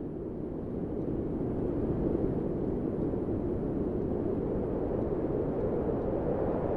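Wind blowing: a steady, low rushing noise that eases slightly just after the start and then builds back up.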